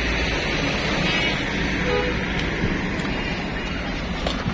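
Steady road traffic noise: passing vehicles and running engines as an even wash, with a few sharp clicks near the end.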